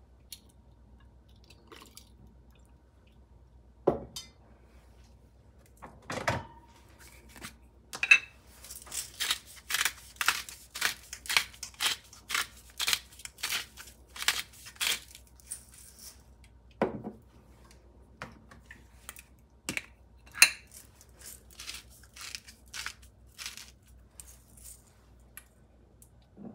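Spice mill being twisted over a glass salad bowl, a run of crisp crunching clicks at about two to three a second. A few sharp knocks come before and after, one with a brief ringing.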